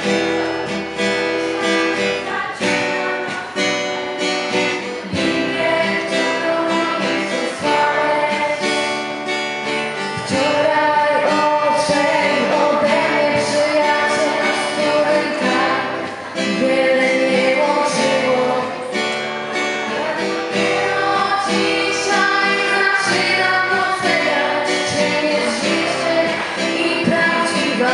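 Acoustic guitar strummed in a steady rhythm, accompanying a group of young voices, mostly girls, singing together; the singing grows louder about ten seconds in.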